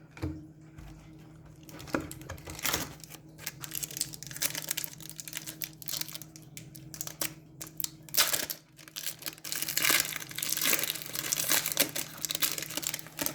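Trading card pack wrapper crinkling and being torn open, in irregular rustles that grow busier and louder in the second half.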